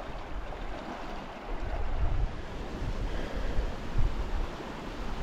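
Rushing water of a mountain stream, a steady hiss, with gusts of wind buffeting the microphone about 2 and 4 seconds in.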